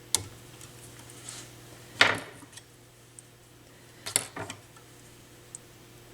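A small hand tool clicking and clanking against a thin sheet-metal tab inside a stereo receiver chassis as it is pried and bent. There are three main metallic knocks about two seconds apart; the middle one is the loudest and rattles briefly. A low steady hum runs underneath.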